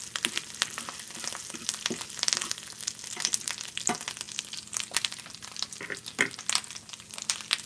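Ground chorizo frying in oil in a small pan, a dense crackling sizzle, with a metal fork scraping and tapping against the pan as it is stirred to keep it from sticking.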